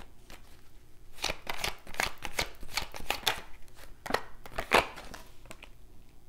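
A tarot deck shuffled by hand: a quick run of papery card flicks and slaps lasting about four seconds, loudest near its end.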